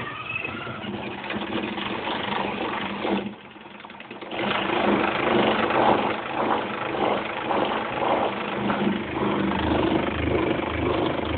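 A small motor spinning a rotating rig on slip rings during a spin test. It drops off about three seconds in, picks up again a second later, and then runs steadily.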